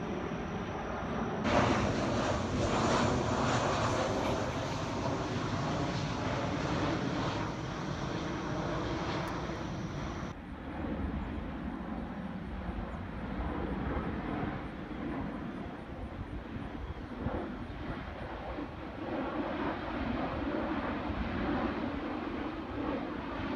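Airplane flying overhead, its engine noise a steady rush that is loudest in the first half and eases after about ten seconds.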